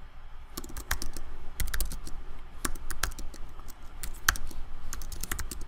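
Typing on a computer keyboard: quick runs of keystrokes with short pauses between them, one keystroke louder than the rest a little past four seconds in.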